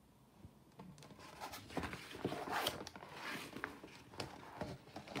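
A page of a picture book being turned by hand: about a second in, a stretch of irregular paper rustling and scraping begins as the page is lifted and laid flat.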